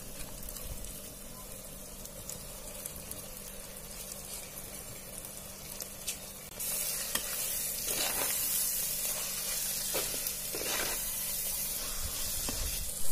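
Raw prawns sizzling in hot oil and onion-masala in a clay pot while they are stirred in with a perforated metal ladle. The sizzle turns louder about halfway through as the prawns are turned into the hot masala, with a few short scrapes of the ladle against the pot after that.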